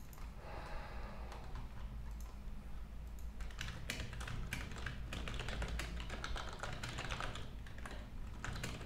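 Typing on a computer keyboard: a run of quick key clicks, sparse at first and coming thick and fast from about three and a half seconds in, over a faint steady low hum.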